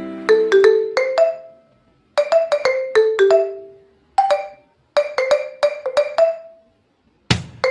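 Background music of melodic mallet-percussion notes, like a marimba or xylophone, played in short phrases with brief pauses between them.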